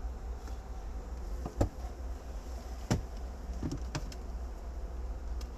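Honeybees buzzing steadily, with a few sharp knocks or clicks, the loudest about one and a half and three seconds in.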